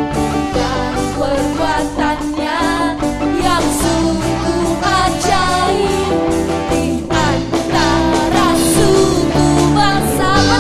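Church worship band playing a lively praise song, with voices singing over guitar and a full band.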